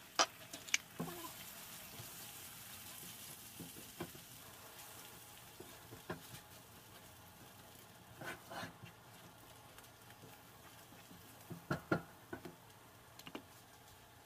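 Eggs with tomato, onion and chile frying in a nonstick pan: a faint sizzle under scattered scrapes and taps of a spatula against the pan, the sharpest just after the start and about twelve seconds in.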